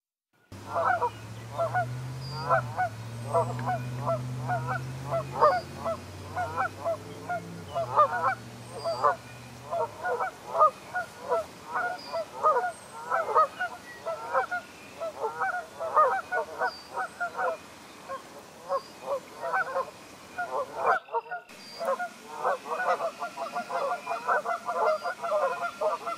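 A flock of Canada geese honking continuously, many overlapping downward-sliding calls. A low steady hum runs under the first ten seconds or so, and the honking breaks off briefly about three-quarters of the way through.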